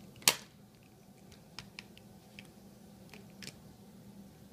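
One sharp plastic click about a quarter second in, then several faint clicks and taps: a hand handling a plastic Hot Wheels toy track and its finish gate.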